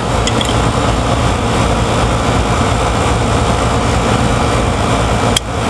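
Steady loud mechanical drone with a low rumble and a rushing noise, like nearby running machinery, with a few faint ticks near the start. It dips briefly near the end.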